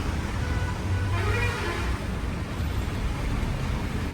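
Steady motor-vehicle noise: engines and tyres running with no clear rhythm or pitch.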